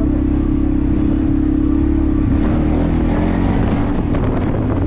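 ATV engine running close by with a steady hum. About two seconds in, the note turns uneven and wavers, with added rough noise.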